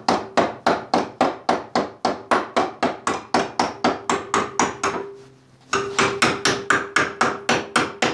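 Hammer blows on a steel flat bar clamped in a bench vise, bending it over at the vise jaws: fast, even strikes of about three to four a second, each with a short metallic ring. The hammering stops briefly about five seconds in, then resumes.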